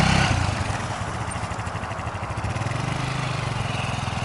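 Dirt bike engine running as the motorcycle pulls away, dropping in level about half a second in and then carrying on steadily, further off.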